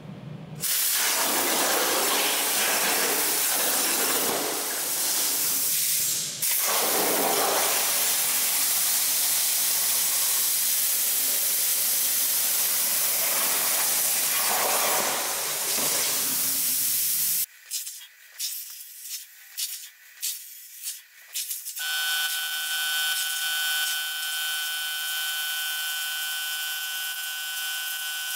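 CNC plasma torch cutting 3/16 inch mild steel plate, a loud steady hiss that stops after about seventeen seconds. Then come a few seconds of scattered clicks, and after that a steady high whine.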